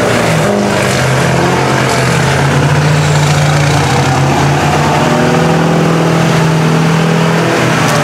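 Engine of a lifted Chevrolet Silverado mud truck on tractor tyres running hard at steady revs as it drives through muddy floodwater, with a loud hiss of churned water and mud under the engine note.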